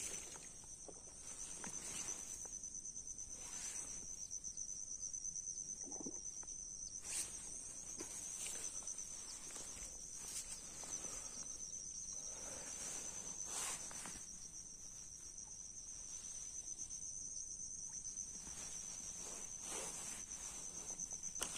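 Steady, high-pitched trilling of an insect chorus in the bankside grass, with scattered light knocks and rustles of fishing tackle being handled.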